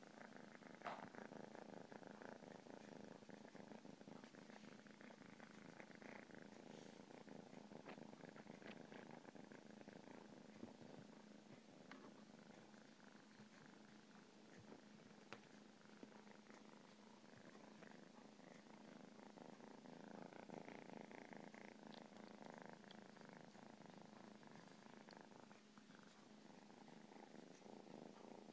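Domestic cat purring steadily and faintly, with a few light clicks now and then.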